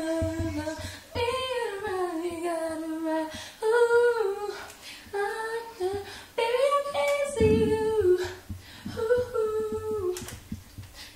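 A woman singing a slow tune in several short phrases, with long held notes that slide downward.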